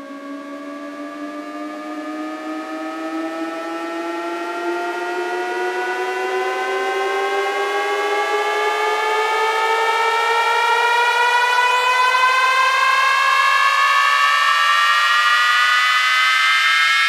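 A siren-like tone slowly rising in pitch and growing steadily louder, several pitched layers climbing together: the build-up riser of a DJ sound-check track.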